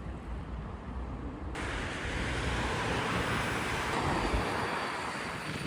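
Outdoor street ambience: a steady rumble and hiss of traffic, which grows fuller and brighter about a second and a half in.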